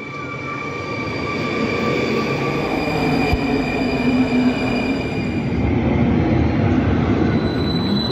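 Electric rail vehicle running: a steady rumble under several high, steady whining tones, with a whine rising in pitch near the end.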